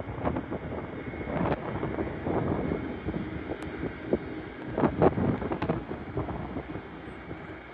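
Wind buffeting the microphone in uneven gusts, over the low, distant rumble of airliners on the runway.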